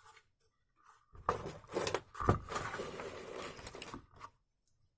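Handling noises: a tool and small parts shuffled and knocked about on a work surface, with a sharp knock about two seconds in. No grinder motor is running.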